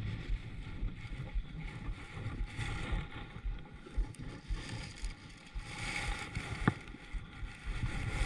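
Wind on the microphone and water moving around a kayak, with a few faint clicks.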